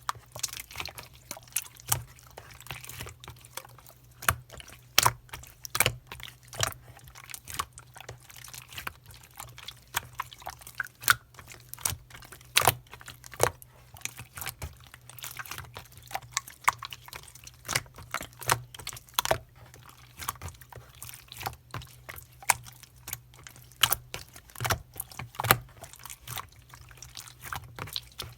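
Slime being squeezed, stretched and poked by hand, making irregular sticky clicks and pops several times a second, over a faint steady low hum.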